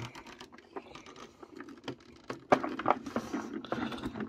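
Heavy iron chess pieces rattling and clicking on their board as the loaded set is carried and set down on a desk. There is a loud knock about halfway through, then a dense run of clicks.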